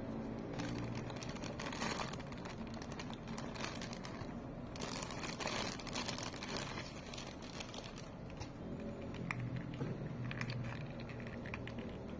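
Packaging crinkling and rustling as a boxed toy figure is handled and unpacked, with many small clicks and crackles; the crinkling is busiest about halfway through.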